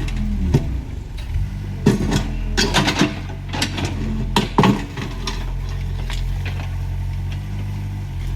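Mini excavator's engine running steadily while the bucket knocks and scrapes against soil and rubble, with a run of sharp metallic clanks in the first half that stop about five seconds in.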